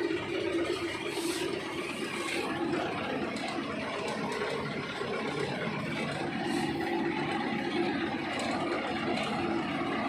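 Engine of road-building machinery running steadily, with an even low hum.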